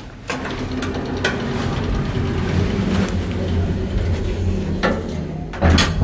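Sound-brand hydraulic elevator working after a car button press: a steady low hum with a few light clicks as the automatic doors close, then a louder thump near the end.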